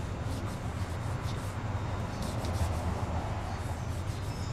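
Short, irregular scratching strokes of a drawing stick on sketchbook paper as a figure is sketched, over a steady low hum.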